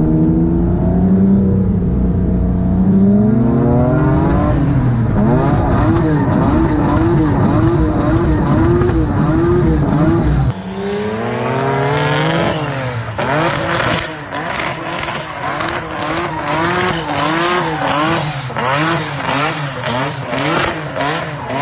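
Twin-engine turbocharged Mazda MX-3 being driven hard in a drift, its engines revving up and then rising and falling in pitch two or three times a second as the throttle is worked, with tyre squeal. About halfway through, the sound changes abruptly, the revs climb again and the rapid rise and fall goes on with crackling.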